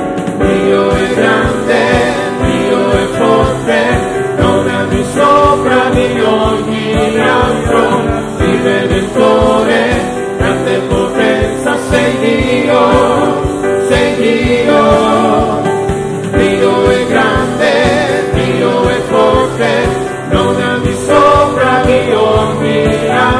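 Italian gospel worship song: a male lead singer with other voices joining, over band accompaniment with a steady beat.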